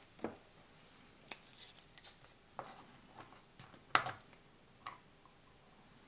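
A few light, scattered clicks and taps of small objects being handled, the sharpest about four seconds in.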